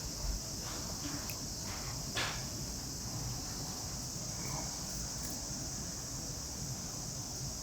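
A steady, high-pitched insect chorus shrilling without a break, with a few faint soft clicks and one brief rustle about two seconds in.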